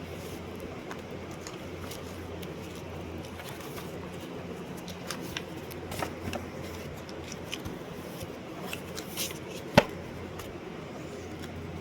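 Steady low hum with scattered light clicks and rustles, and one sharp, loud click near the end.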